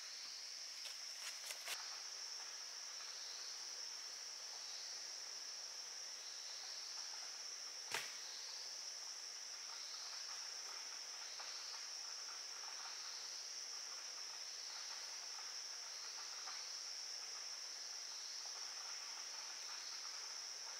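Steady high-pitched drone of insects in the forest. A few faint knocks come in the first couple of seconds, and one sharp click about eight seconds in.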